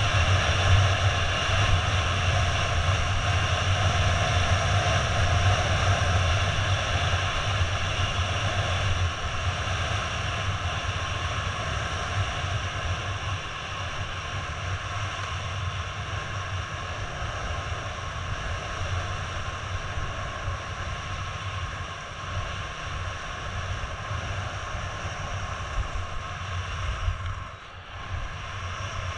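Wind rushing over the camera's microphone during a downhill ski run, with a low buffeting rumble and the hiss of skis sliding on packed snow. It is loudest at first, eases off gradually, and drops briefly near the end as the skier slows.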